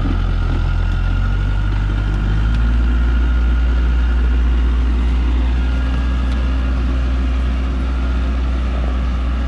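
A loaded log truck's engine runs steadily under load while the truck sits in deep mud ruts on a steep slope. About two and a half seconds in, its note drops to a deeper, louder one and holds there.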